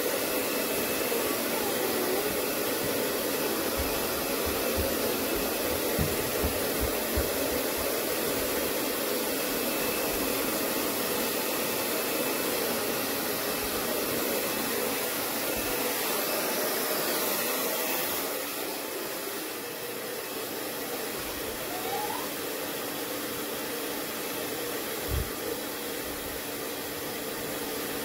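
Handheld hair dryer blowing steadily, drying a dog's coat while it is brushed; about two-thirds of the way through the rush drops a little in level. A few soft knocks are heard over it.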